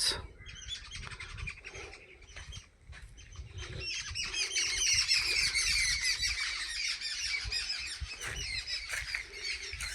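A flock of birds calling and chattering, many rapid overlapping squawky calls that swell and get louder about four seconds in.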